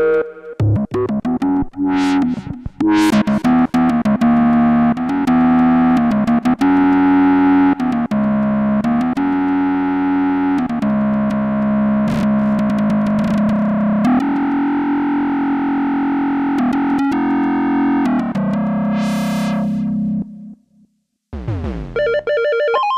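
Roland Jupiter-X synthesizer playing Jupiter-8-style patches: held, changing chords with a few swooshing sweeps early on and another about nineteen seconds in. After a brief break near the end, a different, brighter patch begins with a gliding note.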